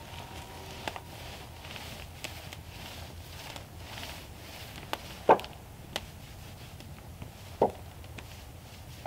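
A brush worked in repeated strokes along a wooden siding board, giving a soft, rhythmic swishing, with two short wooden knocks about midway and a little later.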